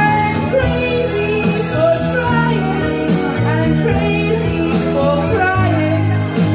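A woman singing a sustained, melodic line into a handheld microphone over backing music with a steady bass line.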